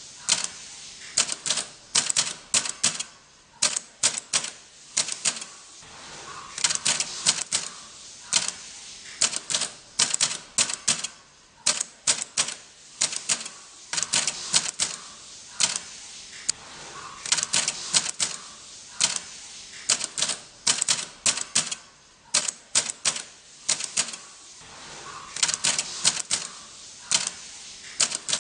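Vintage manual typewriter being typed on: quick runs of sharp key strikes with short pauses between them.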